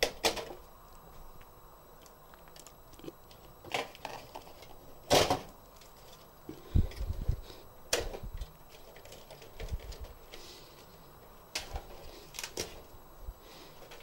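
Power-supply cable connectors being unplugged and pulled out from inside an open PC tower case: scattered sharp plastic clicks and rattles, the loudest about five seconds in, with a couple of dull knocks against the case.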